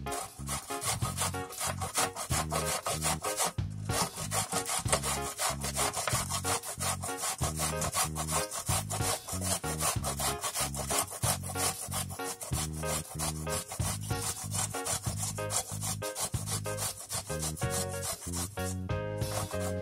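Zucchini being grated on a metal box grater, with rapid, repeated rasping strokes that keep on steadily.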